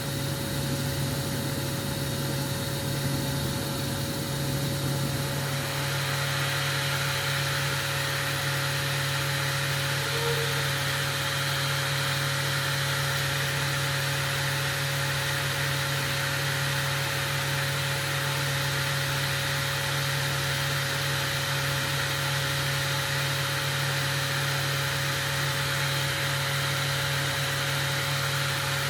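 Steady mechanical hum with a constant tone, joined by a stronger even hiss about five seconds in.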